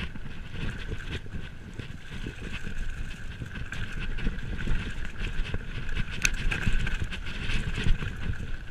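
Mountain bike rolling fast downhill on a dirt forest trail: tyres rumbling over the ground and the bike rattling over bumps and roots, with wind buffeting the microphone. A sharp knock stands out about six seconds in.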